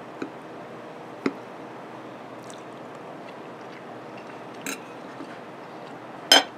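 A person chewing a mouthful of food, with a few short wet mouth clicks and lip smacks, the loudest one near the end, over a steady faint hiss.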